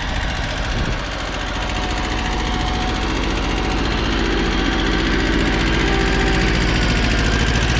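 Small Kubota compact tractor's diesel engine running steadily under load as it pulls a plough, growing louder as the tractor comes closer.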